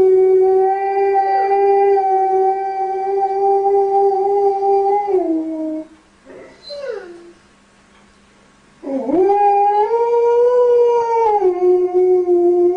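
Husky howling: one long, steady howl that dips slightly in pitch just before it stops, a couple of brief faint sounds in the pause, then a second howl about nine seconds in that rises and levels off.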